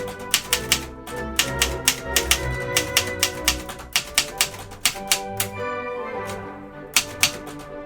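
Smith Corona Corsair manual portable typewriter being typed on for a type test: quick, irregular key strikes, pausing for about a second and a half past the middle, then a few more strikes near the end, over background music.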